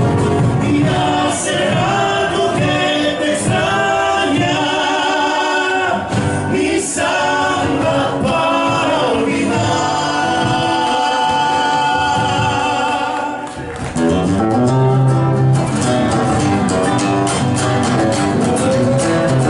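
Folk song with several voices singing together over accompaniment; the music dips briefly about two-thirds through, then picks up again with a more rhythmic passage.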